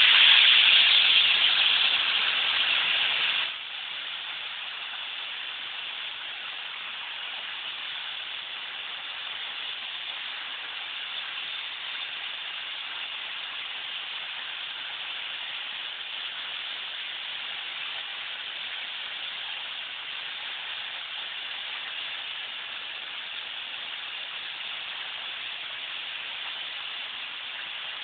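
Plasma cutter cutting 1/16-inch stainless steel sheet, its torch dragged on the surface: a steady hiss of the compressed shop air and arc, louder for about the first three and a half seconds, then even.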